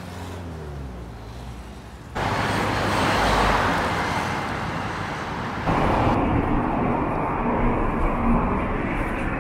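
Road traffic noise: cars passing on a multi-lane street, a steady rush of tyres and engines that steps up sharply about two seconds in.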